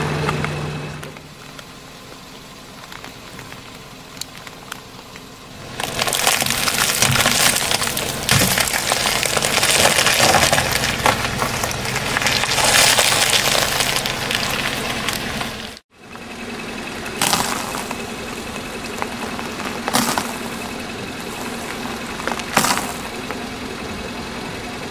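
A car tyre rolling slowly over a packet of biscuits and crushing it: about ten seconds of crackling plastic wrapper and crunching biscuit. After a cut comes a steady car engine idle with a few sharp cracks as the tyre creeps forward.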